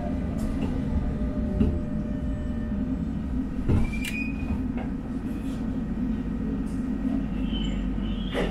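Prague tram running along its track, heard from aboard: a steady low rumble with occasional clicks and knocks, and a short high squeal about four seconds in.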